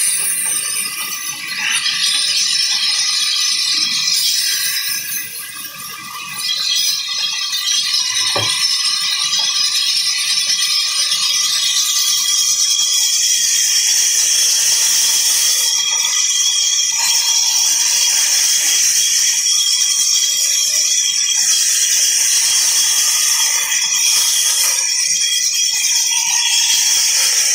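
Band saw cutting blocks of log wood: a steady, high rasping hiss of the blade through the wood. It eases off twice in the first several seconds, and there is a single knock about eight seconds in.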